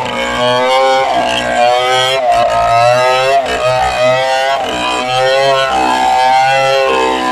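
Stihl chainsaw running at high revs while ripping a log lengthwise, its engine pitch dipping and recovering over and over as the chain loads up in the cut.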